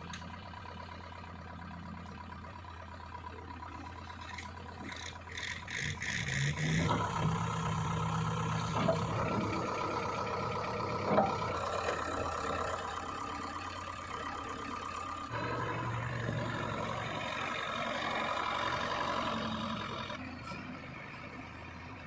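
Diesel engine of a JCB 3DX backhoe loader running steadily, then revving up about six seconds in as the machine works, with a couple of sharp knocks. It eases back near the end.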